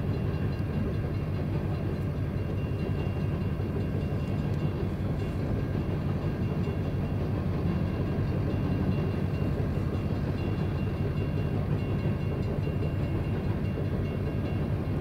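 Coal hopper cars of a BNSF freight train rolling past at a steady pace, a continuous low rumble of steel wheels on rail.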